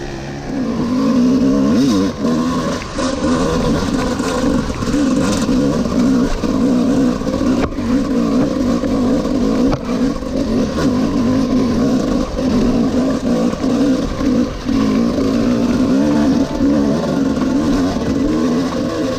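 The two-stroke 250 cc single-cylinder engine of a 1996 Honda HM CRE 250 (a CR250R-based enduro bike) being ridden, revving up and down continuously with a few short drops in the note.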